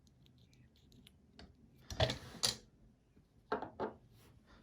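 Small metallic clicks and rattles from handling a just-picked Medeco camlock and its picking tools: a cluster of sharp clicks about two seconds in and a couple more about three and a half seconds in.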